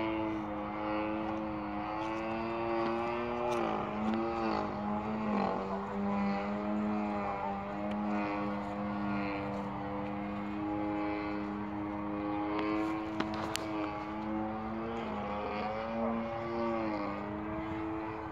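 Radio-controlled aerobatic model airplane's engine and propeller droning steadily overhead. The pitch sags and comes back up twice, about four seconds in and again near the end, as the plane manoeuvres.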